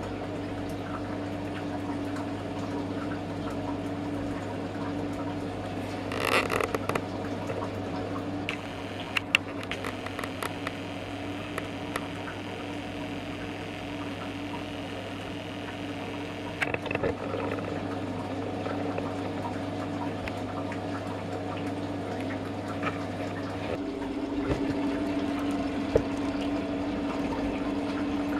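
Water running with a steady low machine hum, broken by a few sharp clicks and knocks.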